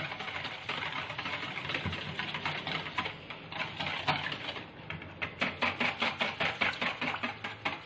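Metal wire whisk beating thin liquid cake batter in a plastic bowl: fast continuous sloshing strokes that, about five seconds in, settle into distinct, even beats about three to four a second.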